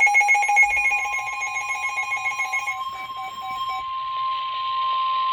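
NOAA Weather Radio 1050 Hz warning alarm tone, a steady high tone announcing a flood warning. A weather radio receiver's rapid alarm beeping sounds over it, slowing and then stopping about four seconds in.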